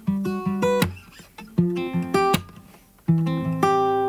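Background music: an acoustic guitar plays picked chords that ring and hold, with short sharp strums between them.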